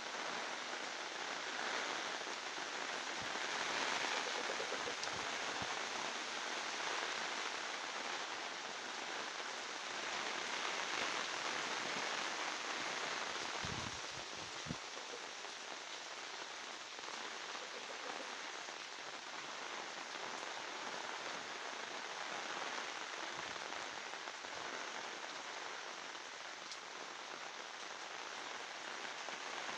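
Steady rain falling on a garden, an even hiss of many drops, a little heavier in the first half. A few short low bumps sound about halfway through.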